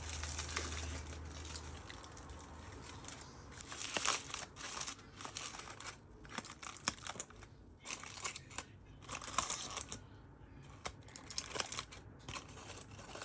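Aluminium foil crinkling and rustling in irregular bursts, with sharp crackles, as a foil-baked parcel is handled.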